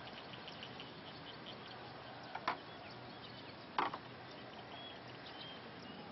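Two sharp clicks, about a second and a half apart, from the plastic tail rotor blades and grips of an RC helicopter being handled by hand. High chirping runs faintly behind them.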